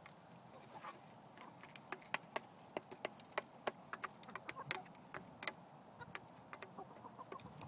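Chickens pecking at food on a framed mirror lying flat: many quick, irregular beak taps on the glass and frame.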